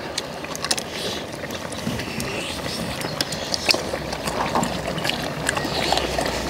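Eating sounds at a shared meal of pork bone stew: chewing and sucking meat off the bones, with many short clicks of metal spoons and tongs against stainless steel bowls. A low steady rumble comes in about two thirds of the way through.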